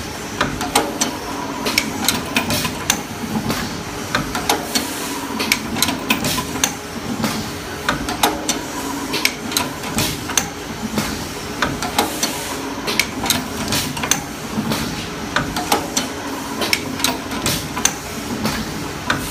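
Paper baking cup forming machine running, its forming mechanism giving a quick, uneven run of sharp clicks and knocks over a steady hum.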